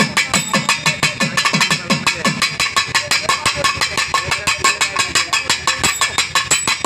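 Carnatic hand-drum solo (thani avarthanam): fast, even strokes, several a second, with deep strokes that slide down in pitch in the first couple of seconds.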